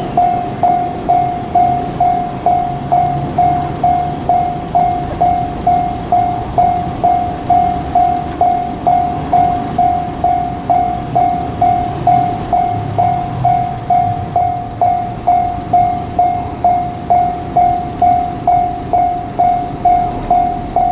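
Japanese railway level-crossing warning bell ringing steadily, about one and a half strikes a second, over the rumble of a passing freight train: an ED76 electric locomotive hauling container wagons.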